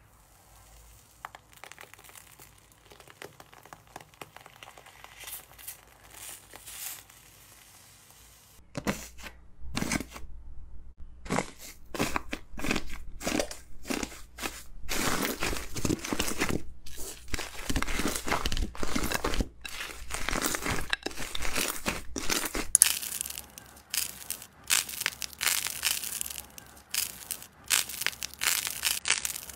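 Slime being pressed and squeezed. Faint crackles come first, as a potato masher presses a clear slime. Then many loud crackling, crunching strokes follow as a hand presses a crusted iceberg slime, and the crackling goes on as slime is squeezed between the fingers near the end.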